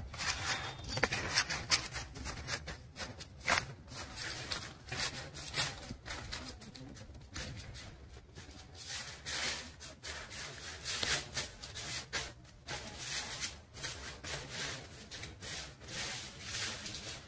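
Footsteps and rustling of people walking: quiet, irregular scuffs and rubs.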